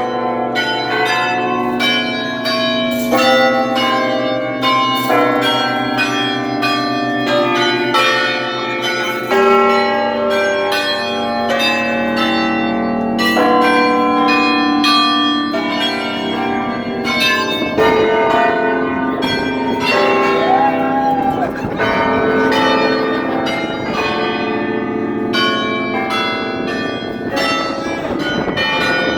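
Tower carillon bells struck in quick succession, many tuned bells of different pitches ringing over one another with long, overlapping tones.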